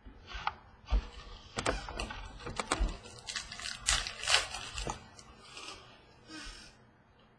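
Trading cards being handled on a wooden tabletop: cards slid, shuffled and tapped down, making scattered short clicks and rustling swishes, fewer and quieter after about five seconds.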